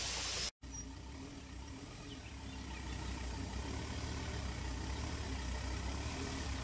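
Ford Endeavour SUV's diesel engine running slowly as it crawls up a grassy off-road track, a low steady hum growing louder as it approaches. It opens with a brief steady hiss that cuts out after about half a second.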